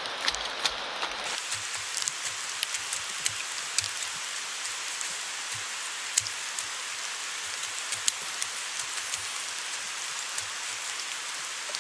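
Steady rain hiss, with irregular knocks, chops and scrapes of a compact folding shovel digging down through soil to clay.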